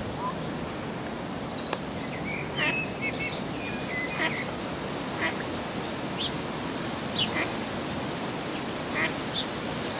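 Ducklings peeping: short, high calls, roughly one or two a second, with a run of longer calls about two and a half to four seconds in, over a steady background hiss.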